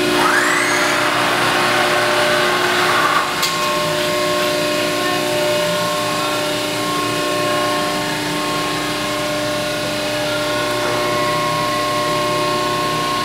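Hydraulic pump unit of a Cincinnati 135CB hydraulic press brake running with a steady whine of several constant tones. A hiss rises in the first few seconds, holds, and ends in a sharp click.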